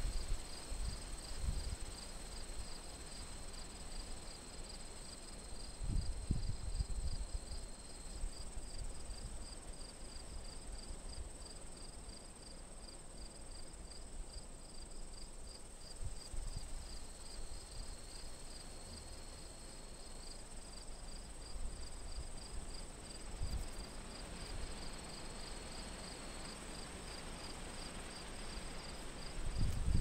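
Field insects, crickets among them, chirping and trilling without a break: one steady high trill and a fast, evenly pulsed chirp. Gusts of wind rumble on the microphone near the start, about six seconds in, and again near the end.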